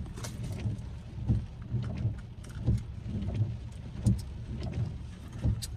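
Rain ticking on a car's roof and windows over the steady low hum of the car cabin, with soft irregular thumps about once a second.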